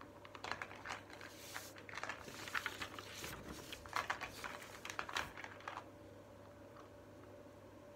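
Plastic lacing beads clicking and rattling together as they are handled and threaded onto a lace, a quick run of small clicks and rustles that stops about six seconds in.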